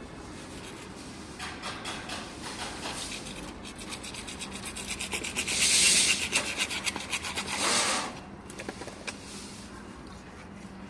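A hand tool rasping back and forth in quick, even strokes, starting about a second and a half in, loudest for the last couple of seconds before it stops. A faint steady hum runs underneath.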